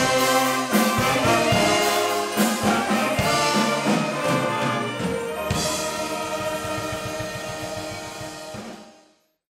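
Brass band playing with a drum kit, brass over drum hits and cymbals. The music gradually fades out to silence near the end.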